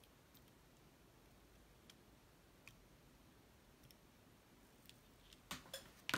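Near silence with a few faint scattered ticks, then three or four sharper light clicks near the end, the last the loudest: small parts and belts of an opened cassette recorder being handled on a bench.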